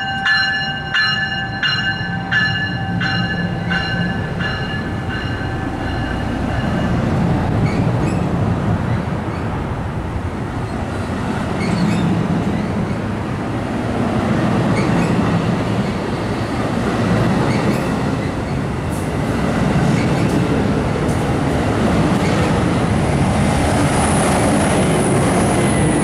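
Bell on an NJ Transit Multilevel cab car ringing about twice a second and fading out over the first several seconds, then the steady rumble of a push-pull commuter train's double-deck coaches rolling slowly past as it pulls into the station. The sound swells near the end as the trailing ALP-45DP locomotive comes alongside.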